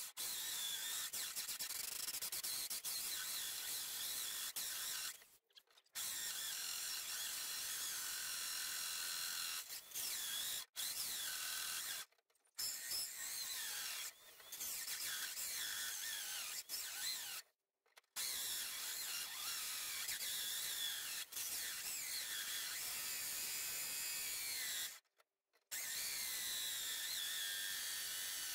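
Electric drill driving a cheap hole saw through the sheet-metal front guard of a Ford Courier, a steady high-pitched cutting and grinding. It stops four times for a second or less and starts again; the cheap saw cuts slowly.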